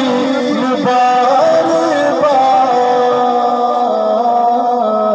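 A man singing a Punjabi naat into a microphone, amplified over a loudspeaker, drawing out long held, ornamented notes with one note sustained through most of the second half.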